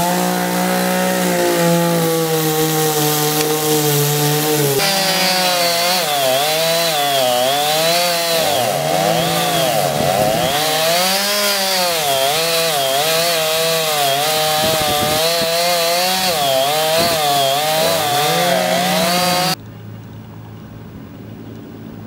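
Gas chainsaw running at high throttle, steady at first. From about five seconds in its pitch rises and falls over and over as the chain works through the wood of a fallen tree's trunk. It cuts off suddenly near the end, leaving a much quieter steady rumble.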